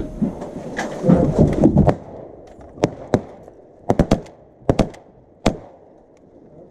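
Dry brush and gear rustling and knocking as a hunter shifts inside a leafy duck blind. This is followed by about nine short, sharp clicks and taps spread over a few seconds.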